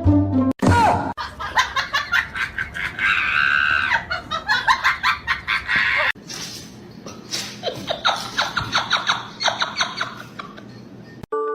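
People laughing hard in quick repeated bursts, with a higher-pitched squeal about three seconds in.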